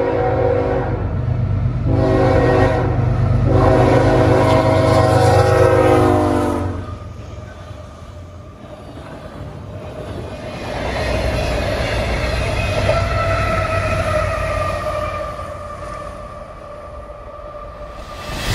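Locomotive air horn sounding three blasts, the last about three seconds long, over the heavy low rumble of the locomotive's engine. The horn then stops and the train rolls by with rail and wheel noise.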